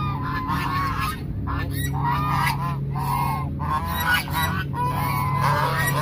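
A flock of domestic geese honking, many short calls overlapping one after another.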